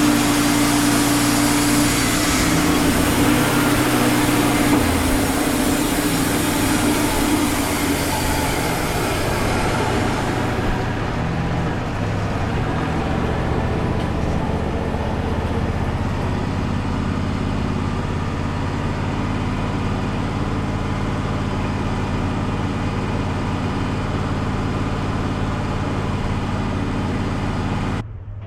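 Wood-Mizer LT35 portable band sawmill running, its band blade sawing through a cedar log, a bright rushing noise over the steady engine for about the first ten seconds. The cutting noise then fades and the engine runs on alone until the sound drops off suddenly near the end.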